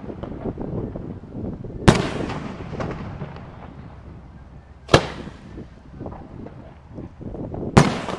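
Aerial fireworks shells bursting: a single sharp bang about two seconds in, another about five seconds in, then a rapid volley of bangs near the end, with fainter crackling and pops in between.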